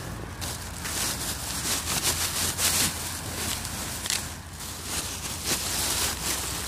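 Footsteps on beach sand and seaweed, with rustling, over a low steady hum.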